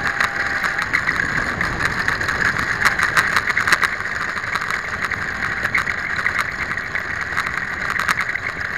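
Slo-Stick electric park flyer's motor and propeller running with a steady whine on its landing rollout, while the wheels and light airframe rattle over rough dirt with many clicks and knocks, densest about two to four seconds in.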